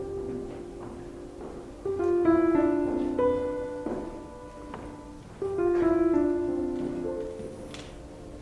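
Background piano music: slow phrases of notes that ring and fade, with louder phrases starting about two and about five and a half seconds in.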